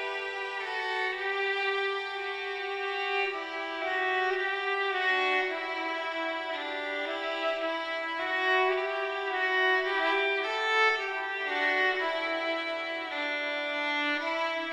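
Background music: a violin playing a slow melody of long, held notes.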